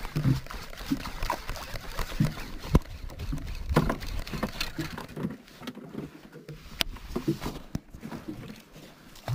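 Handling noise: irregular soft knocks and a few sharp clicks from a Shimano Grappler 301HG baitcasting reel and jigging rod being handled in the hands.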